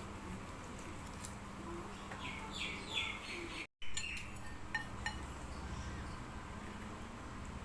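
Close-miked eating of curry-soup instant noodles: a run of short slurps about two to three seconds in, then a sudden cut to silence. A few light utensil clinks against the bowl follow.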